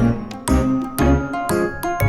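Upbeat background music with bright chiming notes over a steady bass beat, about two beats a second.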